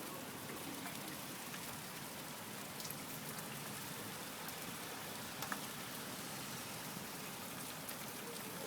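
Steady rain falling, an even hiss with scattered drop ticks, one sharper tick about five and a half seconds in.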